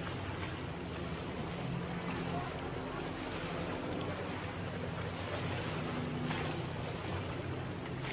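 Distant motorboat engine running steadily, with wind noise on the microphone.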